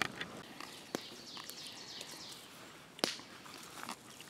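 Wild birds singing in the background, many short, quickly falling high whistled notes. Three sharp clicks cut in: near the start, about a second in, and about three seconds in, the last the loudest.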